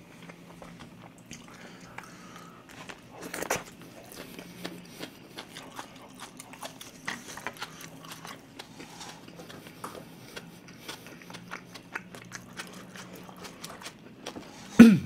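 Close-miked chewing and mouth noises of a man eating grilled pork belly: many small wet clicks and smacks, with a louder bite about three and a half seconds in. A sharper, louder click comes just before the end.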